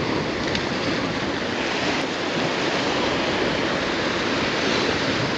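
Choppy sea surf washing against jetty rocks in a steady rush, with wind on the microphone.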